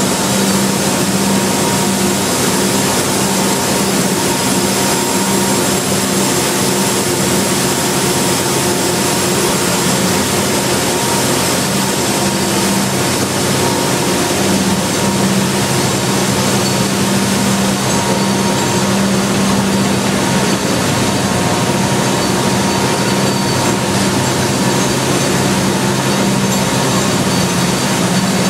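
Plastic sheet extrusion line running: loud, steady machinery noise with a constant low hum and a few steady higher tones that never change.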